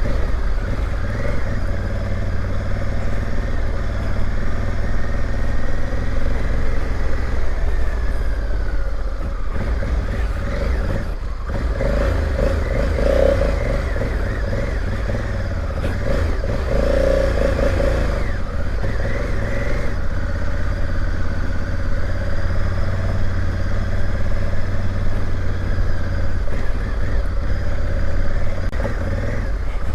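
Honda Africa Twin motorcycle engine running while riding off-road, the revs rising and falling several times over a steady low rumble.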